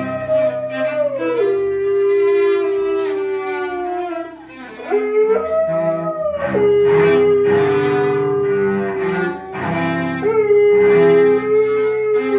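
A cello being bowed while a husky howls along with it in long, held howls that slide in pitch. There are short breaks in the howling about five and ten seconds in.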